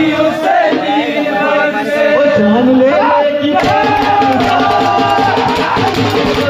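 A crowd of men singing a Hindu devotional song together in chorus. About three and a half seconds in, percussion comes in with a quick, steady beat under the singing.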